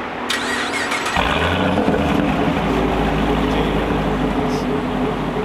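Pontiac G8 GT's 6.0-litre V8 on straight pipes starting up: the starter whirs for about a second, then the engine catches and settles into a loud, steady idle.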